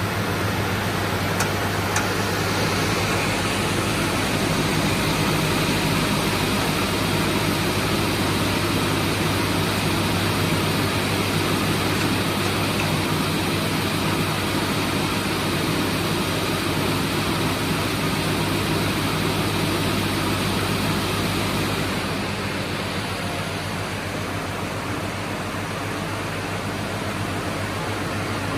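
SCM M2 220/120 crawler-feed multi-rip saw running, its roughly 30 kW main motor and circular saw blades giving a loud, steady hum and dense machine noise. The sound eases slightly about 22 seconds in.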